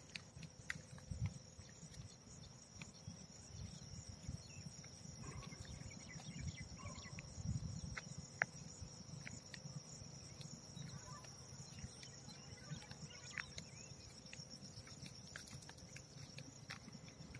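Quiet open-field ambience: a steady high-pitched insect drone, with scattered faint footstep clicks and an uneven low rumble underneath.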